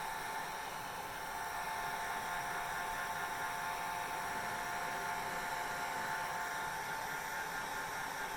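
Hair dryer running steadily: an even rushing hiss of air with a steady whine from its motor.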